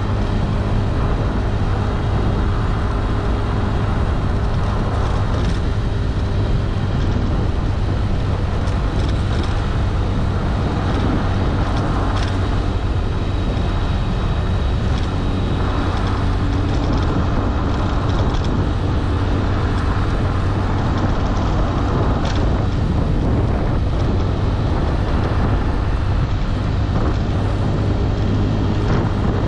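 Motorbike engine running steadily while riding, a constant low hum under a broad rush of wind and road noise.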